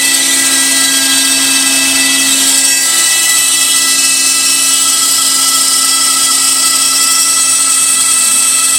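DeWalt DWP611 compact router spinning at high speed on a Shapeoko 3 CNC, its bit cutting MDF, together with a Bucket Head shop vacuum pulling the dust through the dust shoe and hose. It is a steady whine with a high hiss, and the tone shifts slightly about three seconds in.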